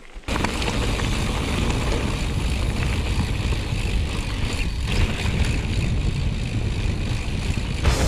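Steady rush of wind on an action camera's microphone with tyre rumble from a mountain bike ridden at speed, starting abruptly just after the beginning.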